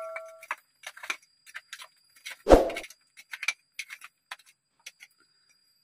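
A steel hammer blow on a chisel rings out and dies away within the first half second. Scattered small clicks and taps of metal on hard rock follow, with one louder knock about two and a half seconds in.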